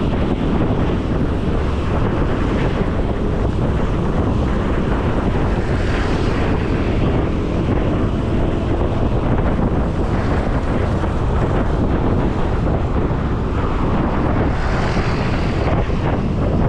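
Loud, steady wind buffeting the microphone of a bicycle moving at speed on a road.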